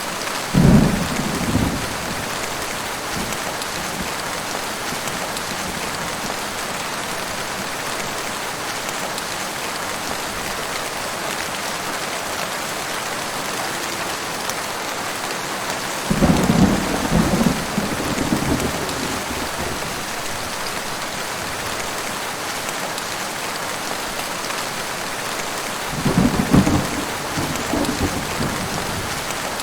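Heavy rain falling steadily, with three rolls of thunder: one right at the start, one a little past halfway, and one near the end.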